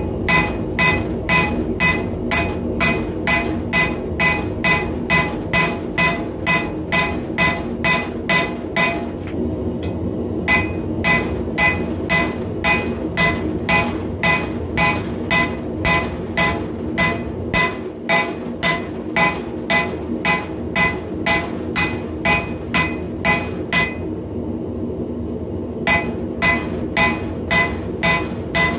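Hand hammer forging a red-hot bar of high-carbon steel on an anvil: steady blows about two to three a second, each with a clear metallic ring, stopping twice for a second or two. A steady low hum runs underneath.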